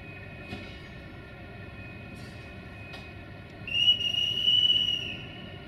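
A Sulzer-engined 060-DA (LDE2100) diesel locomotive shunting, its engine a steady hum. Just before the end a loud, high, steady whistle sounds for about a second and a half.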